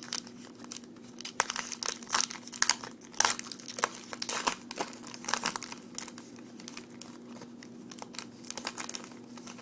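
Crinkling and tearing of a trading-card pack's plastic wrapper as it is handled and opened, an irregular run of crackles that thins out about two-thirds of the way through.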